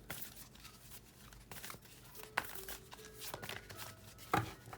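Oracle cards being shuffled by hand: irregular papery riffling and soft slaps, with a sharper snap about two and a half seconds in and another near the end.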